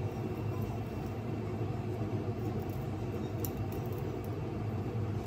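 Steady low mechanical hum, like a fan or motor running, with a couple of faint clicks.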